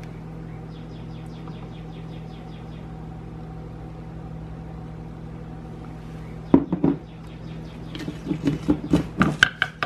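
A steady low hum, then a few sharp knocks about six and a half seconds in and a quick run of taps and clinks near the end: a metal measuring spoon knocking against a plastic food processor bowl as maple syrup is tipped in.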